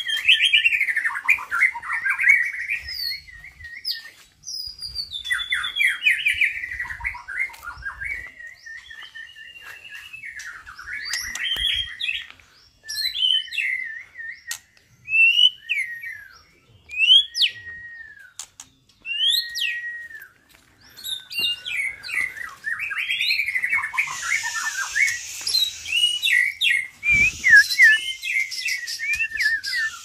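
White-rumped shamas (murai batu) singing from their cages: a long, varied run of clear whistles, rising and falling slurs and short chirps. A rougher, hissing stretch sits over the song near the end.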